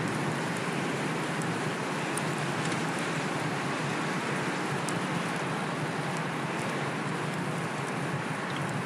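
Steady rush of wind and tyre-on-road noise from a fixed-gear bike being ridden, with a few faint ticks scattered through.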